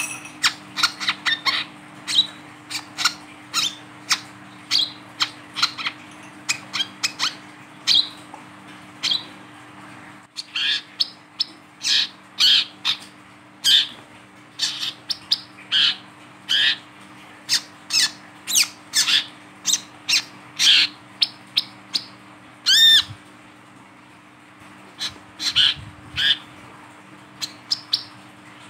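Male brown-throated sunbird (wiceh, kolibri kelapa), held in the hand, giving a run of short, sharp, chipping calls, one or two a second, with one longer call that rises and falls late on.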